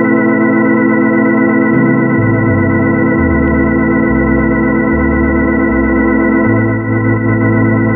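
Orla Ringway RS 600 electronic home organ holding a sustained closing chord. Beneath it, bass notes step through a slow line, about one change a second, from about two seconds in.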